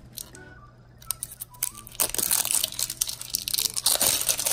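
Plastic toy packaging crinkling and crackling as it is handled and torn open: a few faint clicks at first, then dense crinkling from about two seconds in.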